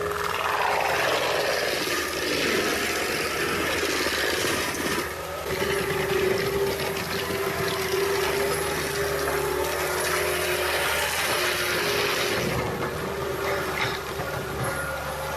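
Heavy machinery running steadily: a continuous engine hum with a held droning tone and a rough, rattling noise over it.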